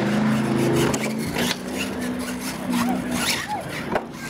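Radio-controlled monster truck's motor whining as it drives over gravel, its pitch shifting with the throttle and dying away. A few knocks follow, with a sharp knock about four seconds in as the truck crashes and tips over against a wooden box ramp. Spectators' voices are faint behind it.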